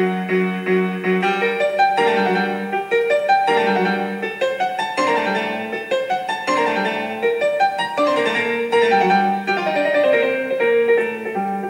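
Piano music, a steady flow of notes.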